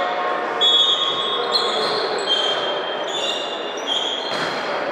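Players' court shoes squeaking repeatedly on an indoor gym floor during a volleyball rally, over a steady echoing hall background, with one sharp thump of the ball being hit about four and a half seconds in.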